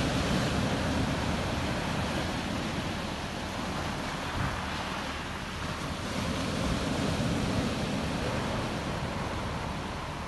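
Sea surf breaking and washing up the beach: a continuous rushing that swells near the start and again about seven seconds in.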